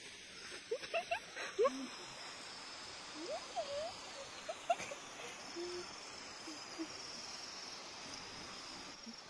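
Outdoor ambience: a steady high-pitched insect trill that sets in about six seconds in, with scattered short faint calls sliding up and down in pitch before it.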